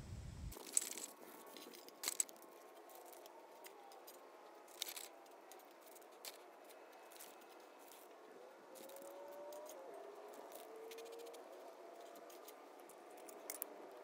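Faint handling sounds of paper and small oak kindling strips being stuffed into a homemade rocket furnace: a few scattered sharp clicks of wood knocking together, with light rustling in between.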